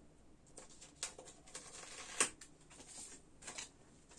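Faint scattered clicks and brief rustles, with a sharper tap about two seconds in.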